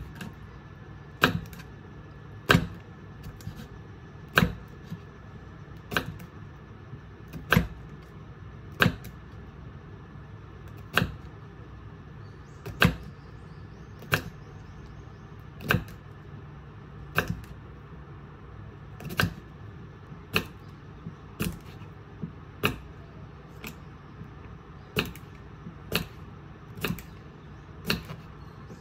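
Sharp knocks or taps, one every one to two seconds at a fairly even pace, over a steady low hum.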